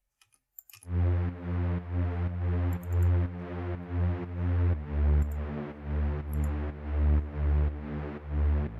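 A fat, subby saw bass synth from Native Instruments Massive plays a sustained low bass line, starting about a second in, changing note about halfway through and again near the end. Its volume swells and dips about twice a second, in time with the beat.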